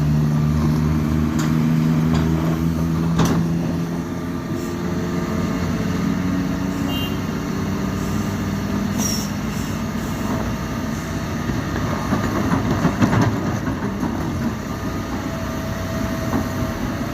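Heavy diesel engine of a loaded FAW JH6 truck running hard on a steep climb. Its steady drone changes tone about four seconds in, with a few short high hisses and knocks.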